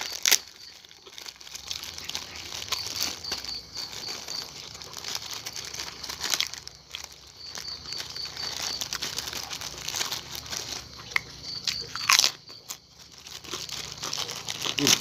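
Plastic bag of krupuk crackers crinkling, and crackers being bitten and chewed with a crunch, with a few louder crackles near the start and about twelve seconds in. The crackers are a little soggy (melempem).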